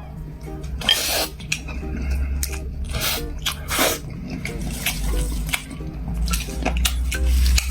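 A person eating close to the microphone: wet mouth smacking and short chewing clicks, irregular throughout.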